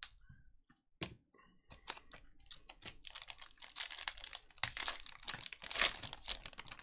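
Foil trading-card pack wrapper being torn open and crinkled by hand. A few separate sharp crackles at first, then a dense run of crackling from about three seconds in that stops near the end.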